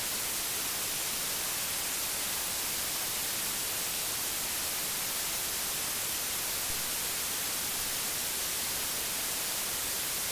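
Steady static hiss, even and unchanging, brighter in the high range than the low.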